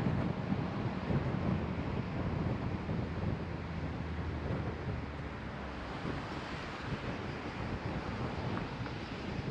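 Car driving along a road: steady tyre and wind noise, a low rumble with a hiss over it, easing off slightly about halfway through.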